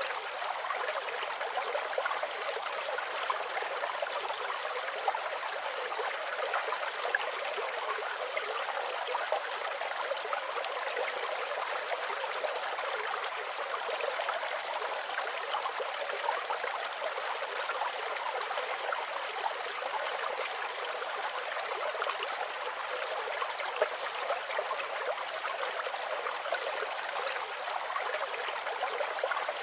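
Running water of a flowing stream, a steady even babble.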